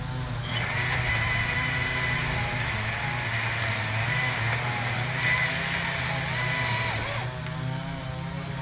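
Engine of the tree-removal machinery running steadily. From about half a second in until near the end, a loud rushing noise lies over it.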